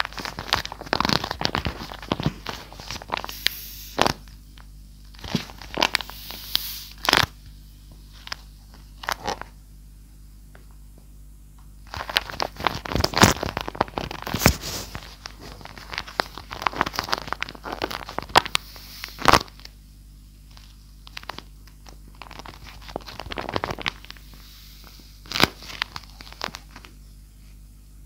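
Handmade paper-and-tape squishy crinkling and crunching as it is handled and squeezed, in irregular bursts with sharp crackles and quiet pauses between them.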